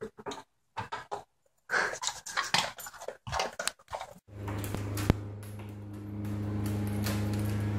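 A dog sniffing in short, irregular breaths with its nose down at a tile floor, nosing at a treat it has found. About four seconds in, a steady low hum takes over, with a single click about a second later.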